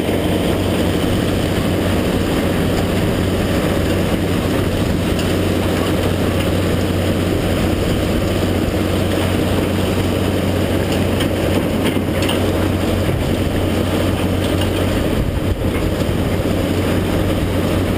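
Komatsu PC400 excavator's diesel engine running steadily under load with a low hum, blended with the din of the concrete-crushing plant, as the machine works through concrete rubble.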